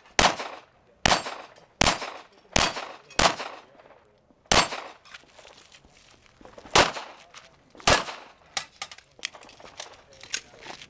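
Handgun shots fired in a practical-shooting stage: about eight loud, sharp shots roughly a second apart, with a gap of about two seconds after the sixth. Several fainter sharp cracks follow near the end.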